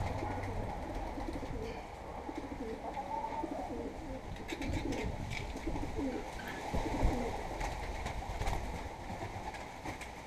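Pigeons cooing in a low, continuous murmur, with a few light clicks about halfway through.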